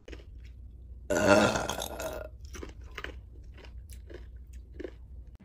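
A woman's loud burp about a second in, lasting about a second, followed by a few faint short clicking mouth sounds.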